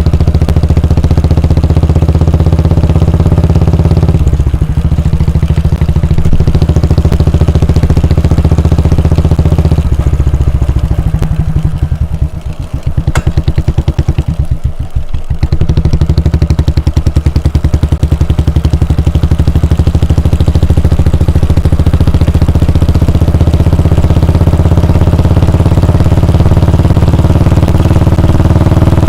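Royal Enfield Bullet 350's air-cooled 349 cc single-cylinder engine running with its steady exhaust thump. Near the middle it slows for a few seconds to separate, evenly spaced thumps, then picks back up to a steady run.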